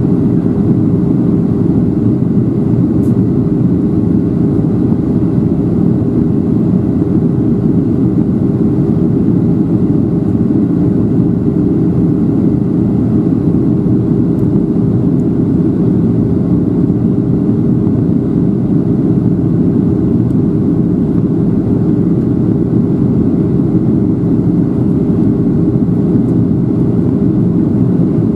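Steady cabin noise inside a Boeing 737-700 on descent: its CFM56-7B turbofan engines and the rush of air over the fuselage make an even low roar with a steady hum, unchanging throughout.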